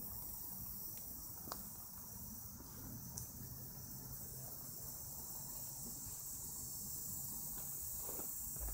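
A steady, high-pitched chorus of insects, with a few faint ticks.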